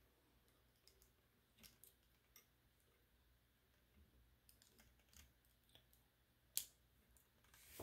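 Faint, scattered clicks of plastic Lego pieces being handled, with one sharper click about six and a half seconds in; otherwise near silence.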